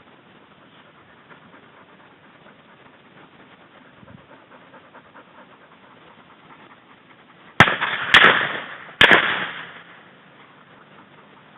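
Three shotgun shots in quick succession, a little under a second apart, about two-thirds of the way in, each trailing off in a short echo.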